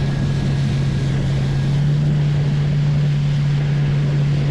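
Fishing boat's engine running steadily under way, a constant low hum over wind and water noise, with wind buffeting the microphone.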